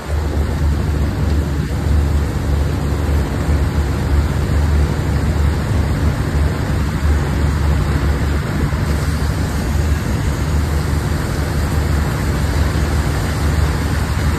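Heavy machinery engine running steadily on a working barge: a continuous low drone with a constant hiss over it.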